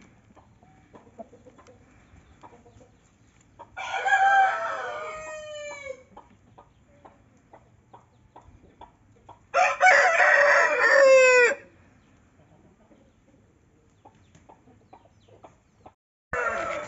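Roosters crowing: two long crows, about four and ten seconds in, each trailing off in a falling note, the second louder, and another crow starting near the end.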